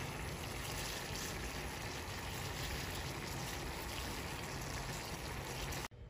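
Green beans at a rolling boil in a stainless steel pot: a steady bubbling rush of boiling water, which stops abruptly near the end.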